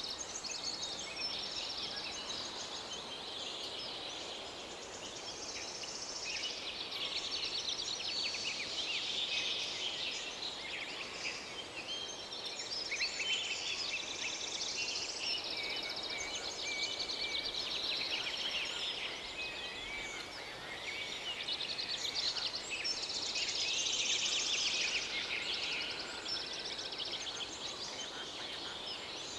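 A dense chorus of high-pitched chirping and rattling calls, swelling and fading in waves, over a faint steady hiss.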